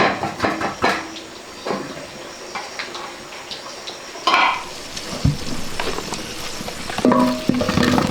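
Clinks, knocks and scrapes of a metal utensil against a cooking pot, as in stirring food. Music starts near the end.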